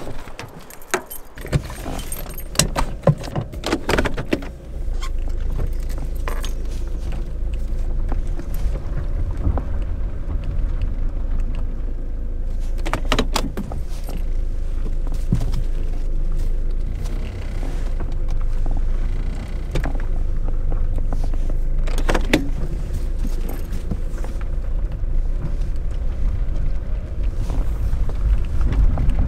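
Keys jangling with clicks and knocks as the car door and ignition are handled, then from about five seconds in the low, steady rumble of a Toyota sedan's engine running, heard from inside the cabin, with a couple of isolated clicks later on.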